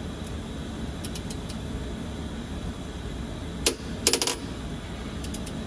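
Light metallic clinks of metal tools or parts being handled: a few faint taps, then a sharp clink about three and a half seconds in followed at once by a quick rattle of several, over a steady low hum.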